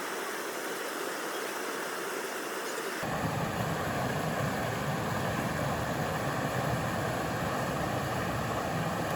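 Steady rushing noise of flowing stream water. About three seconds in it cuts abruptly to a louder, deeper rush.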